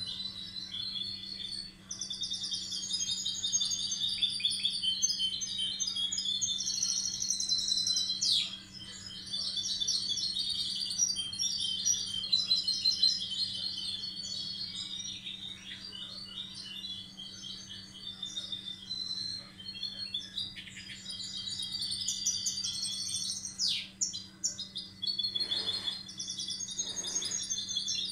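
Goldfinch hybrid (mixto de jilguero) singing a long, rapid twittering song with only short pauses. A few soft knocks come near the end.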